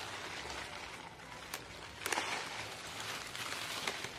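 Rustling of mustard-green leaves and stems being handled by hand in a garden bed, with a sharp click about one and a half seconds in and louder rustling from about two seconds in.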